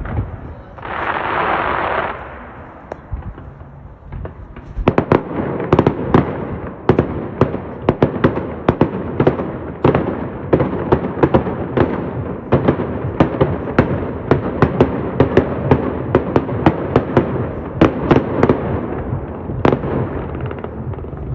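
Fireworks display: a brief hiss about a second in, then from about five seconds a rapid, continuous barrage of sharp bangs and crackles, several a second.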